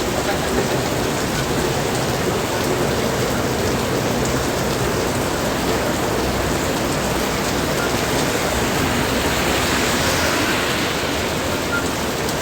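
Heavy rain pouring down steadily, an even hiss of falling water.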